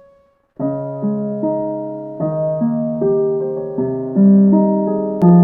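Background music: slow electric piano chords and notes, starting about half a second in.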